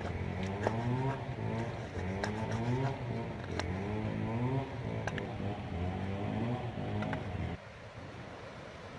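Cleaver knocking on a wooden chopping board a few times, single sharp chops. Under it, louder, a motor revs again and again in rising sweeps of about a second each, then cuts off about seven and a half seconds in.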